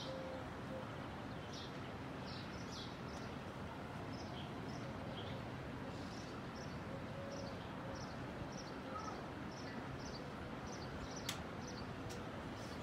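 Small birds chirping in short, high calls over a steady background hum of outdoor noise, with two sharp clicks near the end.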